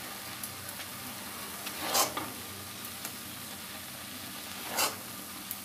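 Thick palmyra palm fruit pulp simmering in a steel kadai with a steady sizzling hiss, stirred twice with louder swishes about two seconds in and near the end.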